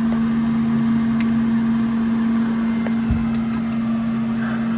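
Steady low hum with two steady tones, with one soft low thump about three seconds in.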